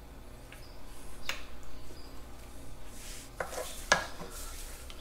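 A few sharp metal clicks and clinks, the loudest about four seconds in, as a washer and nut go onto the top of a tractor's steering shaft over the sector gear and an adjustable wrench is fitted to the nut.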